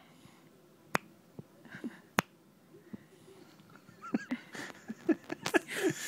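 Two sharp clicks in the first half, then, from about four seconds in, a newborn baby's small grunts, squeaks and breathy sounds.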